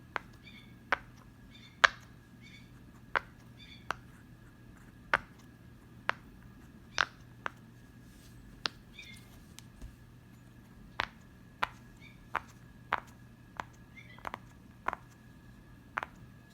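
Fidget toys clicking and popping as they are handled: sharp single clicks at irregular intervals, about one a second, with faint short high chirps between some of them.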